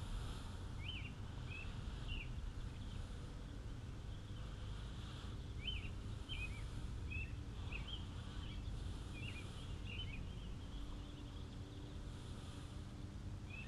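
A small bird calling in short, high chirps, a string of them about a second in and another, longer string through the middle, over a steady low outdoor rumble.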